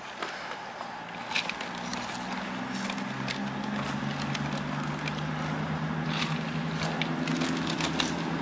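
Diesel passenger train's engines running as the train passes on the line above, a low droning hum that swells from about two seconds in, with a few sharp clicks.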